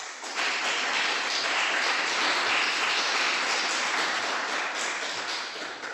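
Audience applauding: dense clapping that starts at once and dies away near the end.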